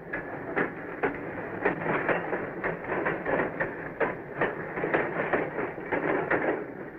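Steel wheels of a heavy loaded gondola car coasting free down from a classification-yard hump, clicking and knocking irregularly over rail joints and switch points above a steady rolling rumble.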